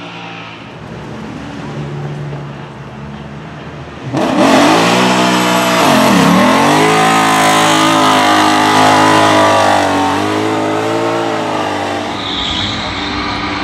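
Ford Mustang GT4's 5.2-litre flat-plane-crank V8 revving hard in a rolling burnout, fainter at first, then suddenly loud and close about four seconds in. The revs dip sharply, climb back and are held high, then rise and fall again near the end.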